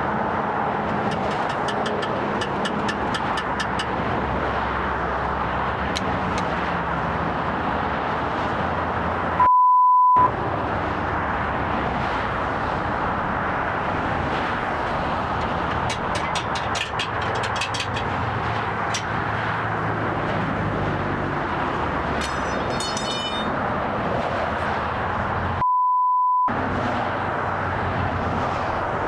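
Steady vehicle or traffic noise with scattered light ticks. It is broken twice by a short, pure, high beep tone, during which all other sound cuts out.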